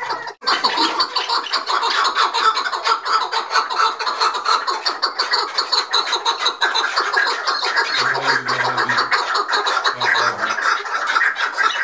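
Chukar partridges calling rapidly and without pause, a dense chatter of sharp notes. These are the agitated calls of birds squaring off to fight.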